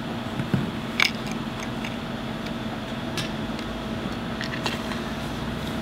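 Steady background mechanical hum, with a few faint clicks and taps.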